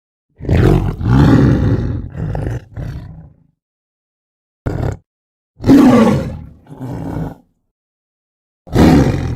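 Tiger roar sound effect: four bursts of roaring and growling, the first and longest lasting about three seconds, with dead silence between them.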